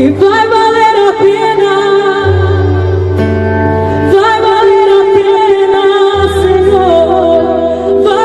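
Gospel song: long, held sung notes with vibrato over low sustained chords that change about every two seconds.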